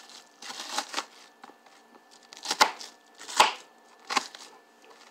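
Kitchen knife chopping an onion on a cutting board: about five separate cuts roughly a second apart, the loudest two about two and a half and three and a half seconds in.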